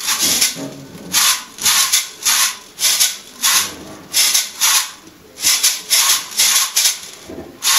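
Flat hand shaker shaken back and forth, making a steady rhythm of dry rattling swishes, a little under two a second.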